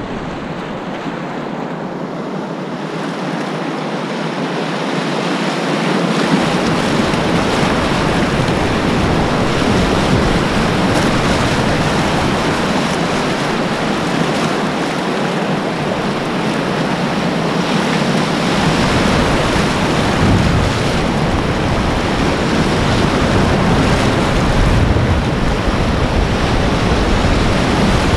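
Class 4 river rapid rushing and churning around a kayak, heard from the boat. It grows louder over the first several seconds as the kayak drops into the white water. A low rumble of buffeting on the microphone comes and goes.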